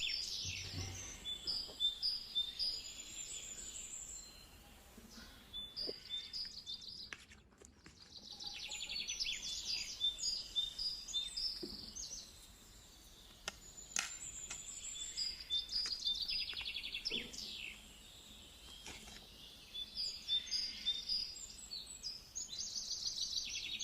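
Small birds chirping and singing: repeated bursts of rapid, high chirps and trills every few seconds, with a few faint clicks between them.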